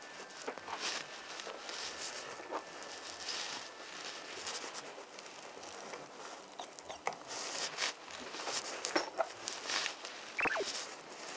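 Light clicks and soft rustling as clear plastic pump-valve cupping cups are handled on an oiled back, with a short falling squeak near the end.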